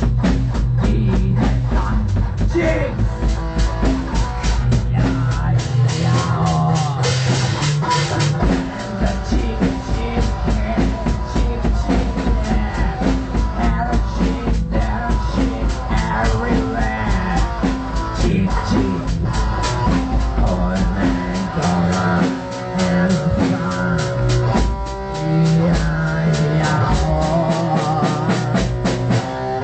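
Metal music played by a band: drum kit and guitar.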